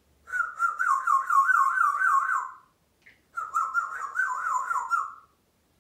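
African grey parrot giving two long warbling whistles, each about two seconds, the pitch wavering quickly up and down about four times a second.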